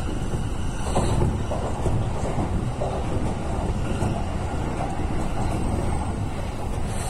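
JR East Utsunomiya Line commuter train running at speed, heard from inside the carriage: a steady low rumble of wheels on rails, briefly a little louder about a second in.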